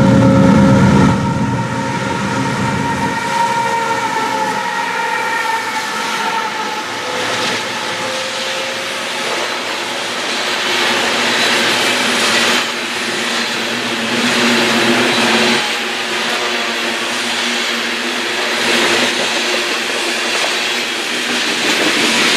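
A diesel locomotive's engine hum fades in the first couple of seconds, then loaded coal hopper cars roll past with steady wheel-on-rail noise and clickety-clack. High ringing tones in the first few seconds slowly drop in pitch.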